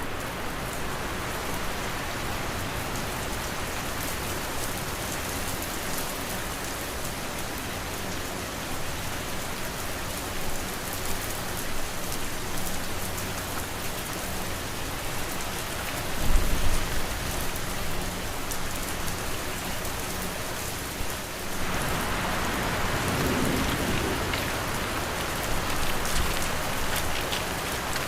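Steady rain noise, with a faint low hum underneath. About halfway through a brief low rumble rises, and near three quarters in the rain turns louder and brighter.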